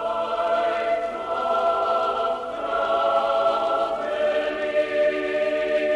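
A choir singing slow, held chords as background music, the chord shifting a couple of times.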